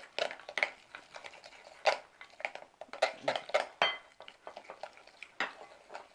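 A metal utensil stirring thick flour batter in a glass mixing bowl, clinking and scraping against the glass in quick, irregular strokes.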